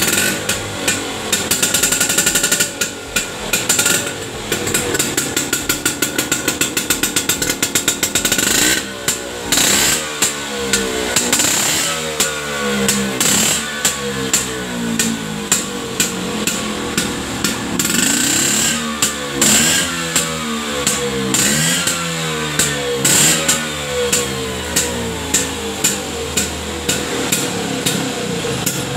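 Vespa Super scooter's two-stroke single-cylinder engine running through an aftermarket BigBox exhaust and being revved. It climbs in one long rev to about eight seconds in, then gets short throttle blips in quick succession, roughly one a second, each rising and falling in pitch.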